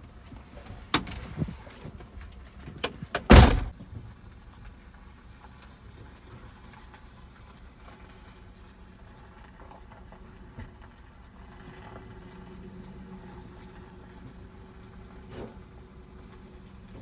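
A few clicks and knocks, then a pickup truck's cab door slamming shut about three seconds in, heard from inside the cab. After that come faint, muffled knocks of junk being handled in the truck bed behind the rear window.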